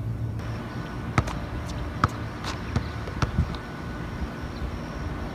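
Basketball bouncing on an outdoor asphalt court: four or five sharp, irregularly spaced bounces between about one and three and a half seconds in, over steady outdoor background noise.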